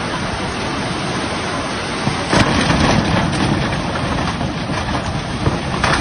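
Swollen brown floodwater rushing in a steady, loud wash of noise, with a sharper, louder surge about two seconds in and a short burst near the end.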